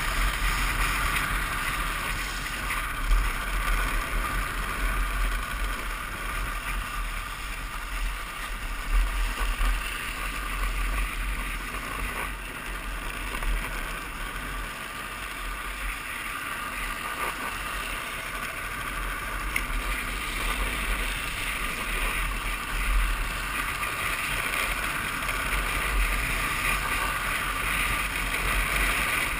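Drift trike rolling and sliding downhill on asphalt, its hard plastic rear wheels giving a steady hiss, with a few brief knocks from bumps. Wind buffets the microphone throughout.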